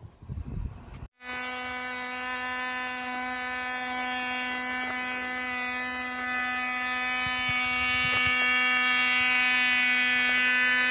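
Cox Pee Wee .020 two-stroke glow engine running flat out on a model plane: a steady, high-pitched buzz that starts about a second in.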